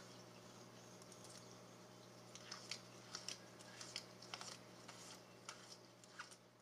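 Faint scattered clicks and scratches from a quince monitor lizard's claws against a window screen and frame, over a steady low hum.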